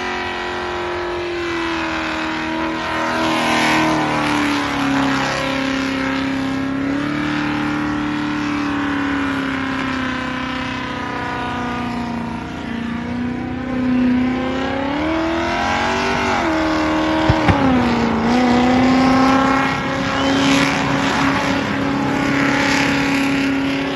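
Ute's engine held at high revs through a burnout, with tyre-spinning noise as the wheels smoke on the pad. The revs sag and climb back several times in the second half, with two sharp cracks just after the midpoint.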